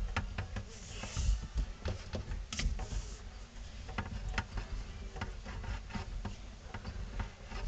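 Scattered clicks, knocks and rubbing of hands working under a sink cabinet, reaching for and turning the faucet's shutoff valves back on, with brief hissing about one second and three seconds in.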